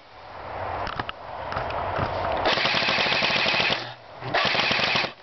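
Airsoft electric guns firing on full auto: a rapid mechanical rattle that builds over the first couple of seconds, then two loud sustained bursts, the second starting about four and a half seconds in.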